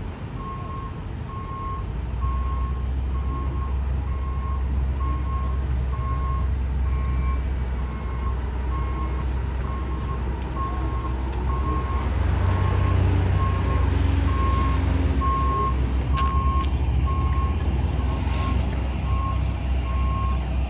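Reversing alarm of a heavy construction vehicle beeping steadily at one pitch, over the low drone of diesel engines that grows louder about two seconds in and again past the middle.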